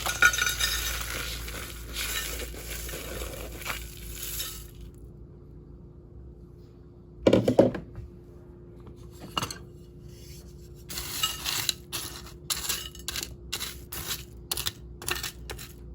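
Frozen shredded hash browns tipped from a plastic bag into a dish: a crinkling, rattling pour for the first few seconds, a single thump about seven seconds in, then a quick run of clinks and taps near the end.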